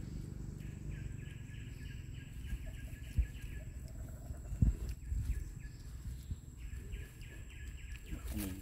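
Rhythmic chirping, several pulses a second, that stops for a couple of seconds midway and then resumes, over a steady low rumble. Two short thumps come about three and four and a half seconds in.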